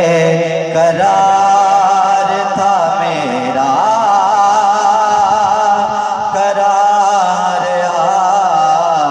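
A man singing a naat into a microphone, drawing out long, wavering melismatic notes with no break between them.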